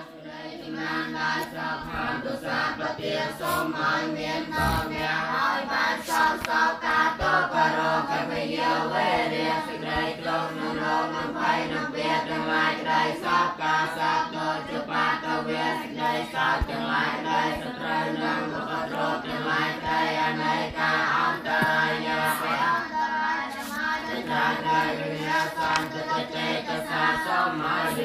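A group of voices chanting together in unison without a break: Buddhist chanting.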